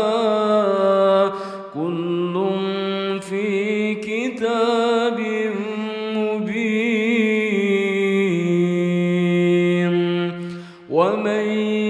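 A voice reciting the Quran in Arabic in a melodic, chanted style, with long held notes ornamented by wavering pitch. It breaks off briefly near the end, then starts a new phrase.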